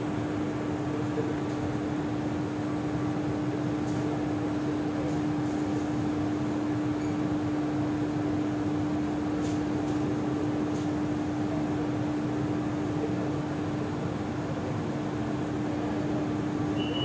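Steady hum of a stationary CT251 metro car's ventilation and auxiliary equipment with the doors open: one constant low tone over an even air-fan hiss, with a few faint clicks. Near the end a high, steady door-closing warning tone begins.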